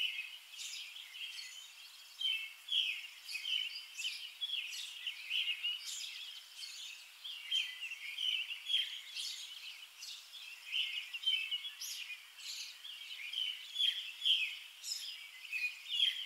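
Small birds chirping: a busy, continuous chatter of many short, high chirps.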